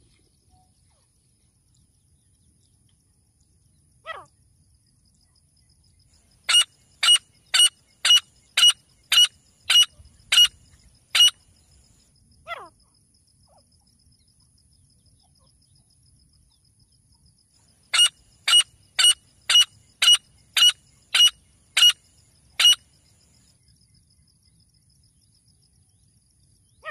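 Male grey francolin calling: two runs of shrill, evenly repeated notes, about two a second, the first starting about six seconds in and the second about eighteen seconds in. A single falling note comes before and after the first run.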